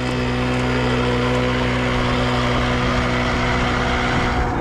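Small 50 cc motorcycle engine running at a steady, even pitch while riding, with a steady hiss of wind and road noise.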